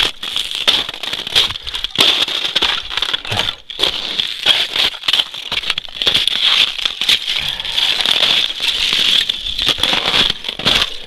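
Boots crunching and crackling over hard frozen snow and ice, a dense run of irregular crunches with a steady hiss above them.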